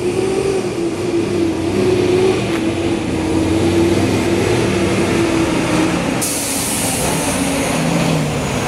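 Diesel engine of a cabover dump truck running loud and steady as the truck drives up and passes close by. About six seconds in, a high hiss joins the engine note.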